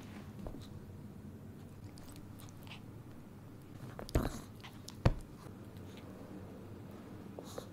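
Eating at a table: soft chewing and small clicks of tableware, with two sharp knocks about a second apart in the middle.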